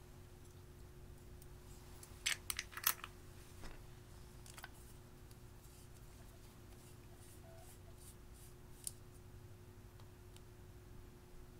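A few light clicks and taps from plastic makeup containers and a lipstick tube being handled over glass dishes: a quick cluster about two to three seconds in, then sparser, fainter ones. A faint steady hum underneath.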